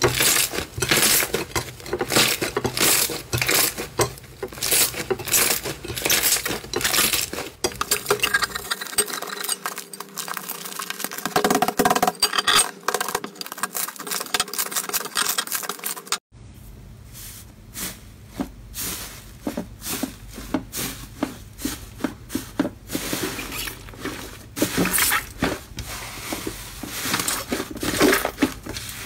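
Slime squeezed and kneaded by hand, giving dense, irregular clicking and crackling pops. The sound changes abruptly about sixteen seconds in when a different, brown slime is being worked.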